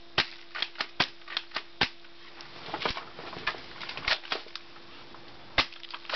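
Sharp clicks and ticks from an airsoft shotgun and its BBs striking a plastic DVD case. A quick irregular run comes in the first two seconds, scattered clicks follow, and there is a louder crack about five and a half seconds in.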